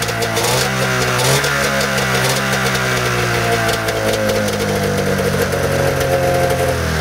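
Arctic Cat snowmobile two-stroke engine running above idle after being revved. The revs climb briefly about a second in, sag slowly, and start dropping back toward idle at the very end.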